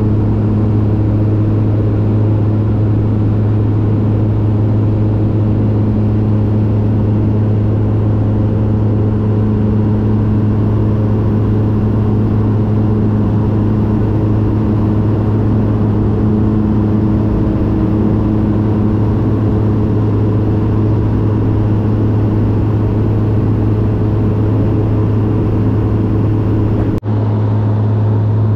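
Engine drone heard from inside a vehicle while under way: a loud, steady low hum with overtones that does not change in pitch. It drops out for an instant near the end.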